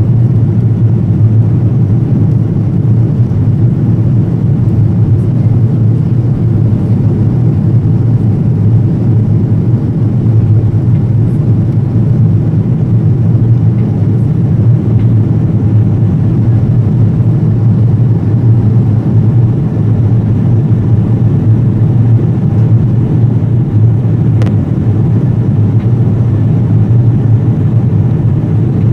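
Steady low drone of engine and airflow noise heard inside the passenger cabin of an Airbus A330-200 in flight.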